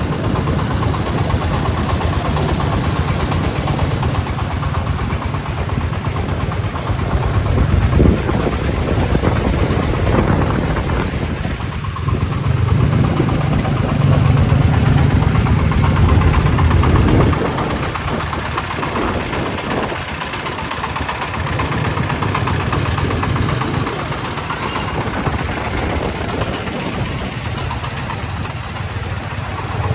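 Single-cylinder diesel engine of a công nông farm tractor-truck chugging steadily as it hauls a full load of sand. It grows louder for a few seconds through the middle, then eases off a little over halfway through.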